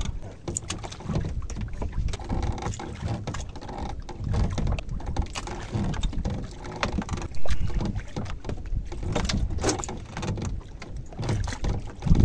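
Water lapping and sloshing against a small boat's hull, uneven in loudness, with scattered short wet clicks and knocks.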